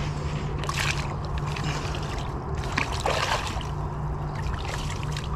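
Water splashing and sloshing in short irregular bursts as a largemouth bass is held by hand in the shallow pond water at the bank, over a steady low hum.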